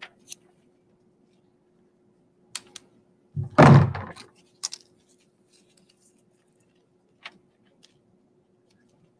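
Leaves and sticky contact paper handled on a tabletop during a craft: a few light clicks and rustles, and one louder thump about three and a half seconds in. A faint steady hum runs beneath.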